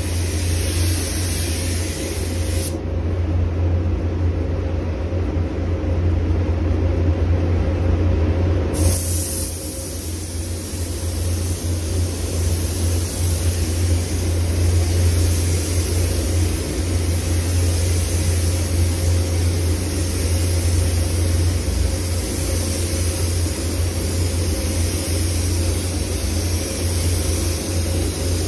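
SATA 4000 RP spray gun hissing as it lays clear coat on a car body, over the steady low hum of the paint booth's air handling. The hiss stops for about six seconds a few seconds in, as the trigger is released, then starts again and runs on.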